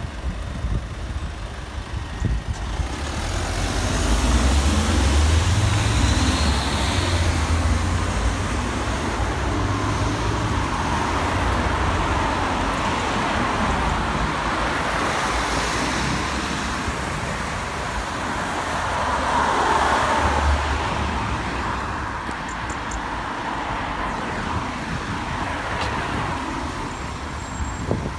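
Road traffic going past close by: steady tyre and engine noise that swells as vehicles pass, loudest a few seconds in and again about twenty seconds in.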